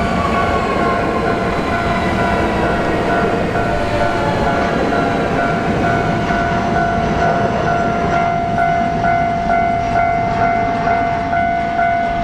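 A railroad crossing's warning bell rings in steady repeated strikes while a Hankyu Kyoto Line electric train runs through the crossing with a loud rumble. The train's whine falls in pitch in the first few seconds.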